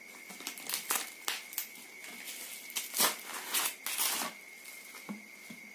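Black plastic packing wrap crinkling and tearing as it is pulled by hand off an airgun's 360 cc air tank, in irregular rustles with a few sharper tears, the loudest about three seconds in.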